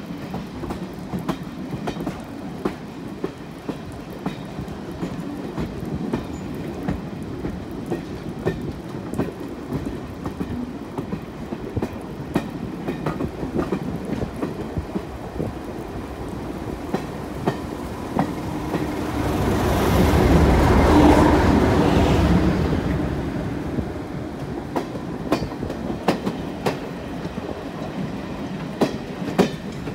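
Train running on jointed track: wheels clicking over the rail joints over a steady rumble. The sound swells louder for a few seconds about two-thirds of the way through, then settles back.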